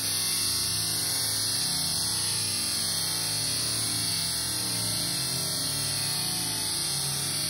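Pet grooming dryer blowing air over a wet dog's coat: a steady whoosh with a low motor hum, switching on just as the sound begins.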